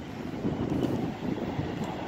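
Wind buffeting the microphone: an uneven low rumble that rises and falls, with no engine or horn tone in it.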